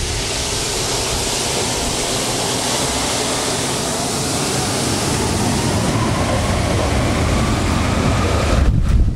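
Jet airliner's turbofan engines spooling up for takeoff: a steady roar with a whine that rises in pitch. Near the end the jet blast reaches the microphone and turns the sound into a louder low rumble of wind buffeting.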